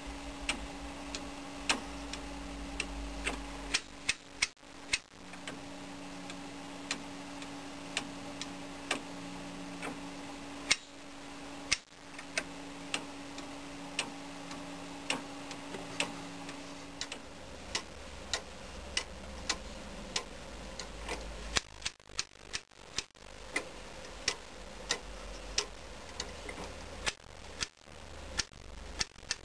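Antique weight-driven clock movement ticking with sharp, regular clicks of its escapement. Late on, the clicking turns faster and more irregular as the iron gear train is turned by hand to wind the weight back up.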